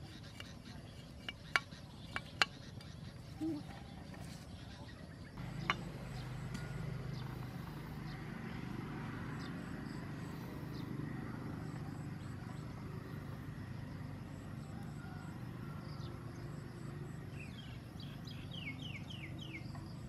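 A few sharp knocks of a large knife chopping a thin stick in the first seconds. From about five seconds in, a low steady rumble sets in and runs on, and near the end comes a quick run of high chirps.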